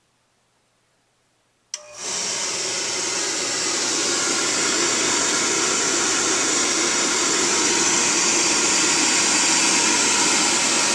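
A click a little under two seconds in, then a Beckett oil burner's motor starts and quickly comes up to a steady airy hum with a strong hiss, its blower fan and fuel pump running before the flame has lit.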